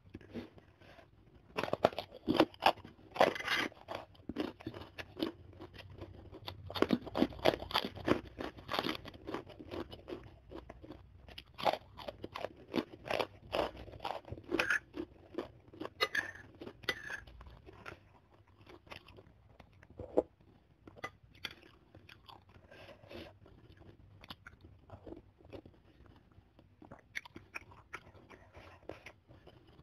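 Close-miked crunching of crispy kerupuk crackers being bitten and chewed, loud and dense in the first several seconds, then giving way to quieter, sparser chewing.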